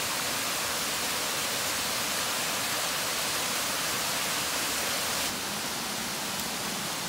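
Small waterfall on a mountain stream, a steady rush of falling water. It drops a little quieter about five seconds in.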